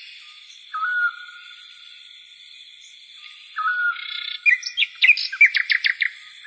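A songbird singing in repeated phrases, each a short lower whistle followed by a quick run of sharp high chirps, over a faint steady high-pitched background.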